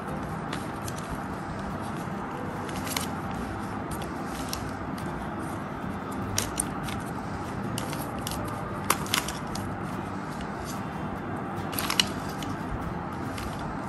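Banana Cube twisty puzzle being turned by hand: a handful of short sharp clicks as its layers move, the loudest near the end, over a steady background hiss.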